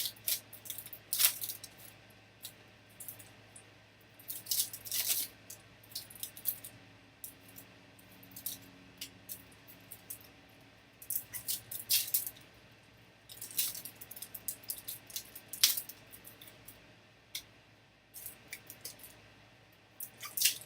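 Trading card packs being opened by hand: wrappers crinkling and tearing in short, irregular bursts, with the cards inside being handled.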